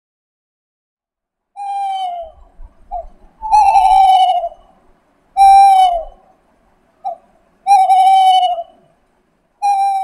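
An owl calling: after a short silence, a series of about six calls, each half a second to a second long and sliding a little down in pitch, with short clipped notes between the longer ones.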